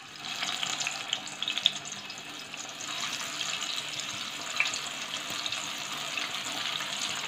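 Masala-coated chicken drumsticks sizzling in hot sunflower oil in a kadai. The sizzle sets in as the first piece goes in and runs steadily, with crackling and a couple of sharp pops.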